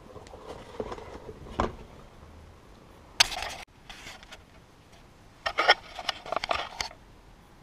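Handling noise of a latex mask: rubbery rustling and a bump about a second and a half in, then short bursts of rustling and scraping, loudest just after three seconds and again between five and seven seconds.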